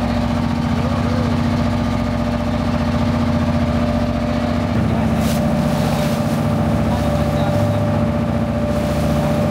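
A boat's engine running steadily under way at sea, its note shifting slightly about halfway through.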